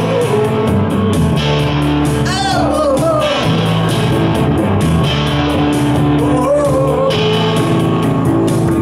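Live rock-and-roll band music: guitar chords over a steady beat, with a wordless sung vocal line wavering in pitch a couple of times.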